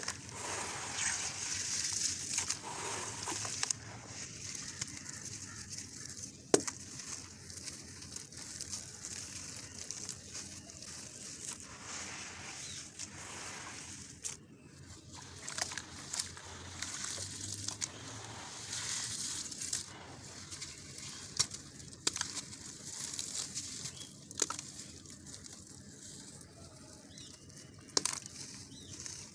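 Gritty reused cement with concrete stones being crumbled in water: continuous crackling, gritty rustle, with a few sharp clicks of stone, the loudest about six seconds in.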